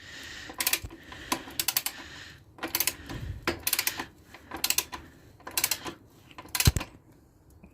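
Ratchet of a torque wrench clicking in short bursts, about seven, as the rear axle nut is wound up, with a heavier knock near the end.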